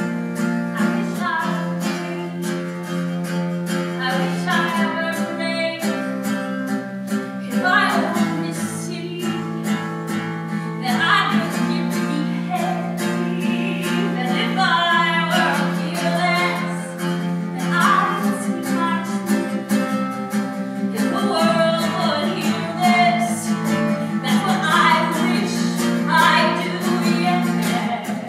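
Acoustic guitar playing a steady strummed and picked chord accompaniment.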